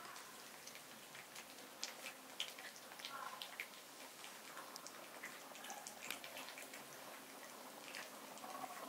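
A cat eating raw beef and egg yolk from a plate: faint, irregular wet smacks and clicks of licking and chewing.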